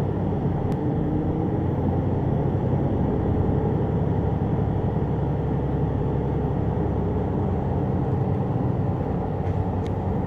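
Steady engine and road rumble of a moving road vehicle, heard from inside its cabin.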